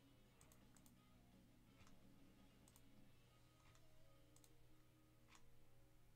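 Faint computer mouse clicks, about one a second, each one re-randomizing the list on screen, over a low steady room hum.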